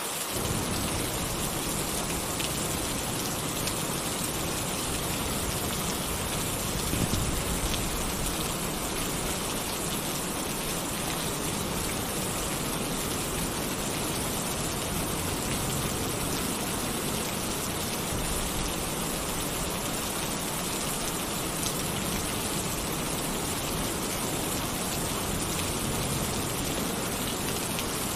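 Heavy rain falling on a tin roof: a steady, even hiss, with one brief louder low thump about seven seconds in.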